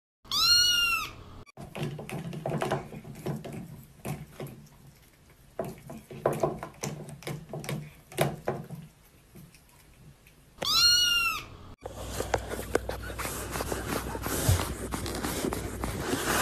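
A cat's meow that rises and falls in pitch, the same short call twice, about ten seconds apart. Between the calls are scattered rustling and handling noises.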